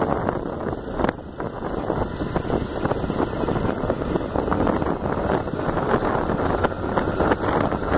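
Motorcycle engine running while riding, heard from on the bike, with wind buffeting the microphone. The level dips briefly about a second in.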